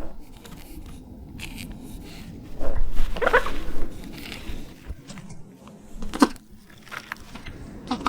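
Film sound-design vocalisations of an Oviraptor, said to be built from bird calls: short chirping, warbling calls over a low rumbling bed. The loudest call comes about three seconds in and lasts about a second, and a shorter call follows near six seconds, with scattered clicks and scrapes between them.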